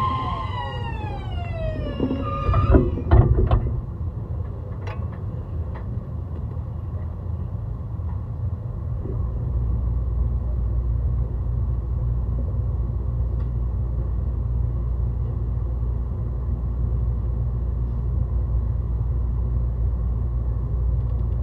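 Traction inverter whine of an E131 series electric train with a Hitachi hybrid SiC inverter, a stack of tones sliding down in pitch over the first couple of seconds. A few loud knocks follow about three seconds in, then a steady low running rumble from under the car.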